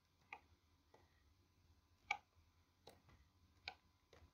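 Faint computer mouse clicks as the map is dragged: about six short clicks at uneven intervals, the loudest about two seconds in, over near silence.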